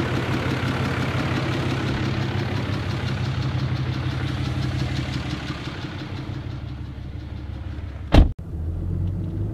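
24-valve Cummins inline-six diesel idling steadily through a freshly fitted 5-inch straight-pipe exhaust. About eight seconds in a truck door slams shut, and after it the idle sounds muffled, as heard from inside the cab.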